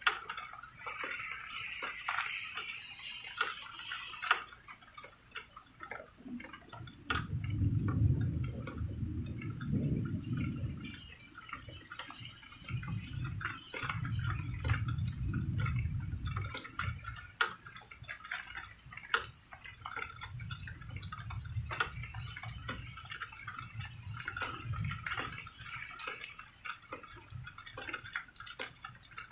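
Rain dripping steadily in many irregular ticks, with distant thunder rolling low three times from about a quarter of the way in to past the middle.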